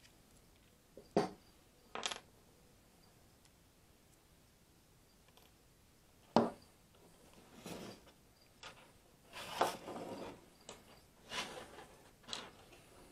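Small metal parts of a Dremel flex shaft being handled and taken apart on a wooden workbench: a few sharp metallic clicks, then a run of scraping and clattering as the inner drive cable comes out of its sheath and is set down.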